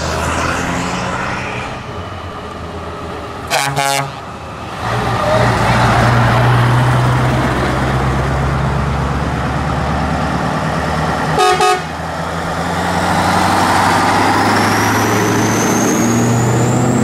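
Scania R580's V8 diesel with open standing exhaust pipes running loud as the truck drives past. A short horn blast comes about three and a half seconds in and another about eleven seconds in, and a high rising whine comes in near the end.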